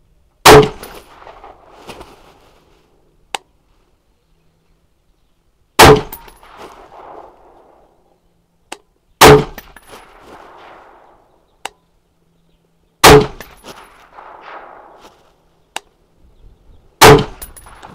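Five shots from a Daniel Defense DD5V2 semi-automatic .308 rifle, fired slowly a few seconds apart, each followed by an echo rolling off for about a second. A faint short click falls between shots.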